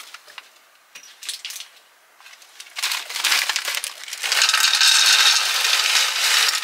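BBQ corn nuggets poured from a crinkling MRE pouch into a stainless steel tray. There are a few light crinkles of the pouch first, then a steady rattle of the nuggets pattering onto the metal for about two seconds near the end.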